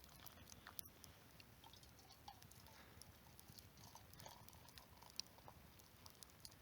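Near silence with faint, scattered small crackles and clicks, irregular, the sharpest just under a second in.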